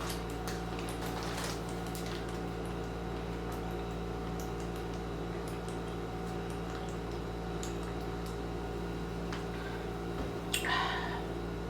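Diet Pepsi being drunk: faint scattered fizzing and sipping ticks over a steady low electrical hum, with one louder gulp near the end.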